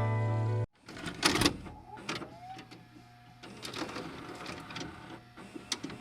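Music that cuts off abruptly under a second in, followed by irregular clicks, knocks and rustling handling noises with a brief rising whine.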